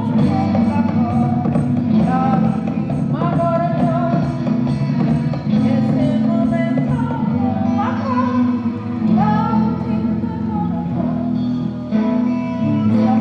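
A song: a singing voice over instrumental backing with a steady beat.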